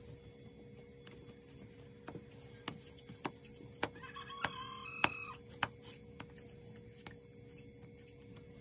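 A series of light, irregular taps or knocks, about eight over a few seconds, with a brief high call in the middle, over a faint steady hum.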